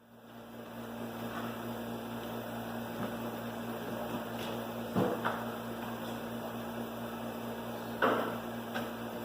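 A steady machine hum with a low drone, fading in at the start, with a couple of short knocks about halfway through and near the end.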